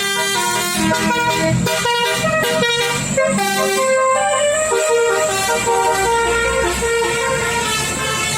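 Basuri telolet horn playing a tune: several horn notes sound together and step up and down in pitch every fraction of a second, loud and continuous.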